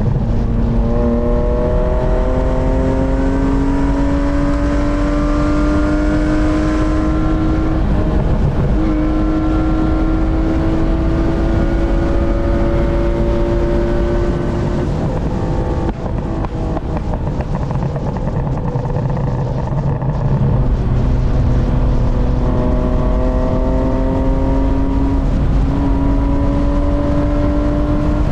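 BMW E36 323i's M52B25 2.5-litre straight-six pulling under load, its pitch climbing slowly through long stretches. About halfway through it eases off to a lower, steadier note for a few seconds, then climbs again.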